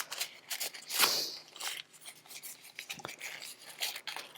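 A pre-moistened lens cleaning towelette being rubbed and scrubbed over the parts of a disassembled folding knife, in short scratchy strokes with small handling clicks and a longer swipe about a second in.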